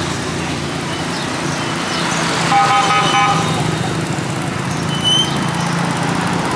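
A vehicle horn beeping in several short toots about two and a half seconds in. Under it run a steady engine hum and the general bustle of a busy market.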